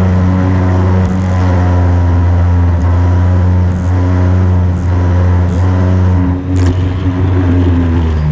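Small string-trimmer engine fitted to an RC truck, running steadily at an even, held speed, with a short click and a brief dip in level about six and a half seconds in.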